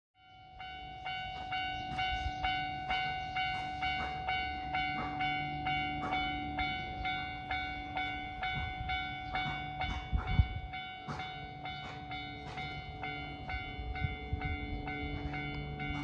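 Japanese railway level-crossing warning bell ringing in an even, rapid clang of about two strokes a second while the crossing gates lower, signalling an approaching train. A loud low thud comes about ten seconds in.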